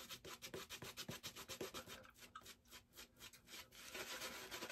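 Shaving brush scrubbing lather into stubble on the face, in rapid short back-and-forth strokes, several a second, that run together into steadier scrubbing near the end. Faint.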